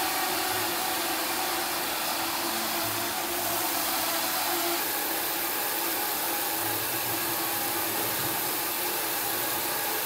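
Steady rushing noise of tofu-shop machinery running, with water pouring from a spout into a stainless steel tank.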